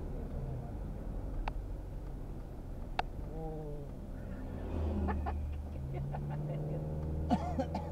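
Steady engine and road noise heard inside a moving car, with a few sharp clicks. A deeper hum swells for a couple of seconds past the middle, and short pitched cries come about a third of the way in and again near the end.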